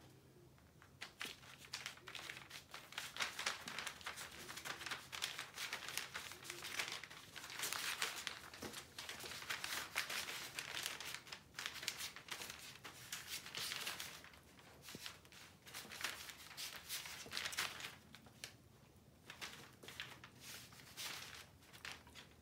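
Paper spread on the floor crinkling and rustling in irregular bursts under the paws of a small dog and her puppies as they scuffle about.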